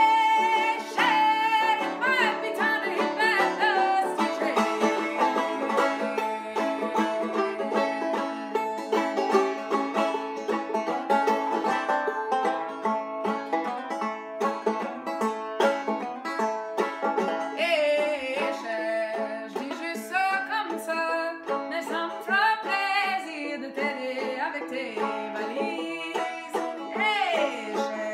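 A banjo strummed and picked in a brisk folk rhythm, with a woman singing over it near the start and again through the second half.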